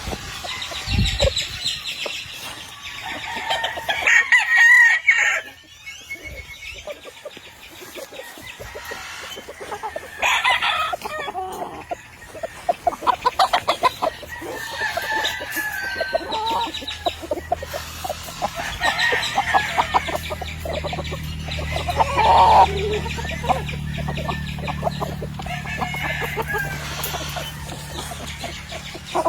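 Gamefowl roosters crowing repeatedly, with clucking in between. A low steady hum runs underneath in the second half.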